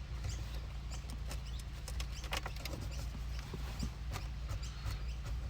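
Scattered small clicks and scratches of plastic car interior trim being worked loose by hand, over a steady low hum.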